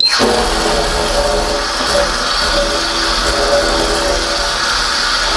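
Tap water running onto hands and into a stainless steel sink as the hands are washed: a steady rush of water.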